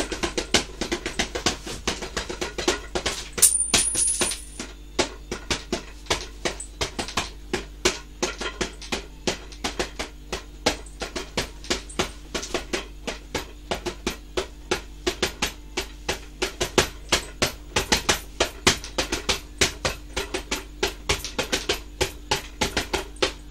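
A snack can tapped by hand like a drum, beaten in a steady, quick rhythm of sharp taps.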